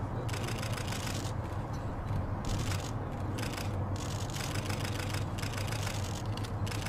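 Steady jet rumble from a Boeing 747-8's four turbofan engines on low final approach to land, with a rushing hiss that comes and goes in the upper range.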